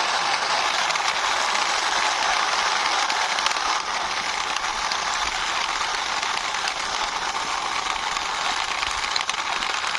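Wheels of a diecast toy police car rolling steadily across a hard surface as it is pushed by hand, a continuous rolling hiss.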